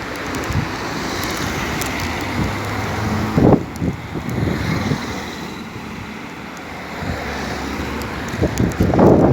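A motor vehicle passes by, its noise swelling to a peak and then fading. Wind buffets the microphone near the end.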